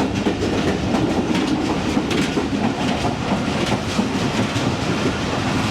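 Passenger train running on the rails: a steady rumble with the clatter of wheels over the track.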